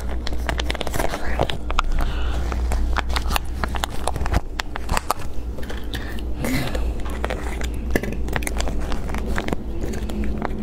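Plastic food packet of chicken feet crinkling and crackling as it is handled and worked open, a dense run of small clicks and rustles. A steady low hum lies underneath.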